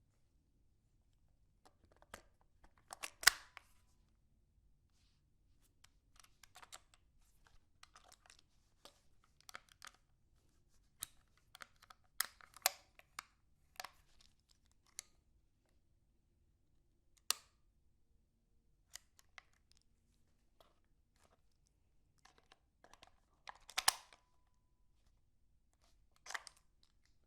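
Ruger 10/22 .22 rifle being handled: scattered sharp metallic clicks and rattles of its parts, the loudest about three seconds in and again near the end, the later one ringing briefly.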